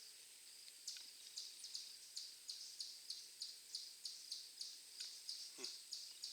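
Faint, evenly repeated high chirping, about three chirps a second, typical of a cricket, over a faint steady high hiss. A brief falling sound comes about two-thirds of the way through.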